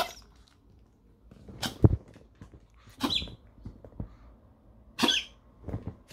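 Small fluffy dog making short, sharp noises, about five of them spread over a few seconds.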